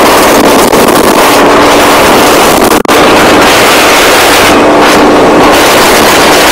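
Heavy wind rushing over the microphone of a KTM sport bike at high speed, with the engine's steady drone faintly underneath. The sound drops out for an instant nearly three seconds in.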